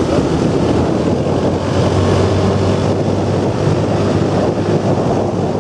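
A vehicle engine running steadily under heavy wind noise on the microphone.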